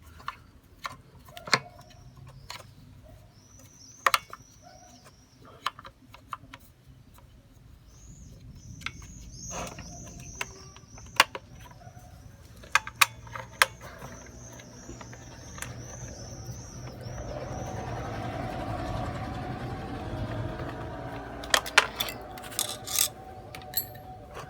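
Scattered metal clicks and knocks of hand tools on a petrol trimmer engine being dismantled. A bird chirps over and over, and a low rumble swells in the second half and fades near the end.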